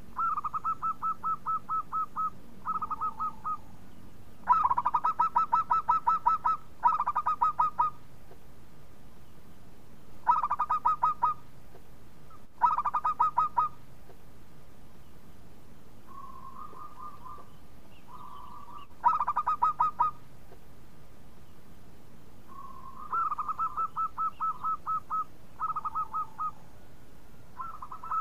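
Zebra dove (perkutut) cooing: runs of quick staccato notes, about six a second, repeated every few seconds, some runs louder than others.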